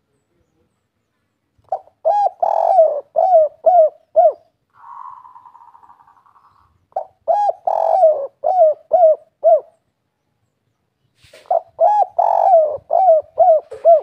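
Spotted dove cooing its 'kuk 3' song three times. Each phrase is about two and a half seconds of low coos: a short note, a longer drawn coo, then three short closing notes.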